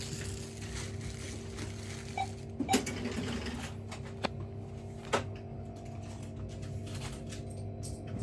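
Steady hum in a small shop, with a few sharp clicks and knocks from goods and money being handled at the counter during payment.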